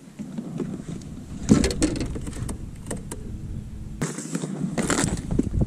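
Knocks and clatter of fishing gear being handled and moved about on the deck of a small boat, in two clusters near the middle and near the end, over low wind rumble on the microphone.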